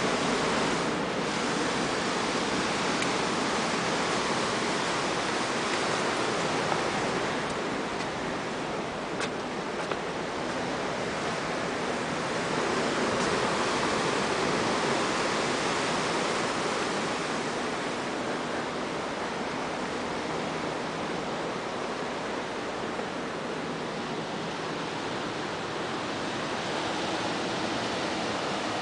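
Sea surf breaking on a rocky shore: a steady rushing noise that eases a little about a third of the way in and swells again soon after.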